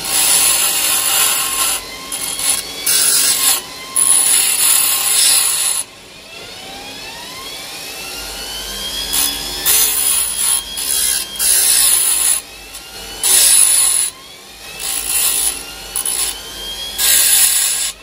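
Parkside double bench grinder's grinding wheel grinding the tip of a steel nail in about eight short passes, a harsh rasping hiss each time the metal touches the wheel. Between passes the motor's whine comes through, rising in pitch between about six and nine seconds in.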